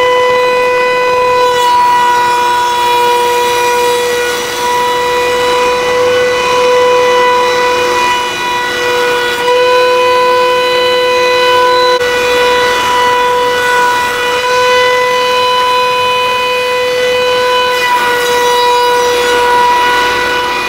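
Router spindle of a gantry wood-slab flattening machine running with a steady high-pitched whine while its surfacing cutter takes a finishing pass across a wood slab, the pitch dipping slightly now and then under load.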